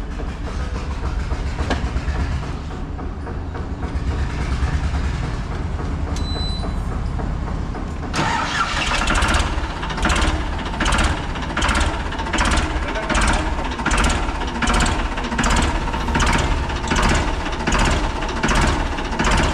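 Ford 3600 tractor's three-cylinder engine running with a steady low rumble. About eight seconds in the sound gets louder and takes on a regular pulsing, a little more than once a second.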